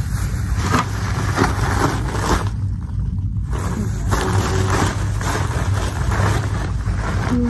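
Clear plastic food bag and plastic gloves crinkling and rustling in irregular crackles as the bag is pulled open, over a steady low hum.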